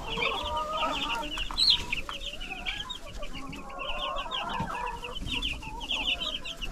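A brooder full of Cornish cross broiler chicks peeping: a dense, continuous chorus of short, high peeps, with lower wavering calls mixed in.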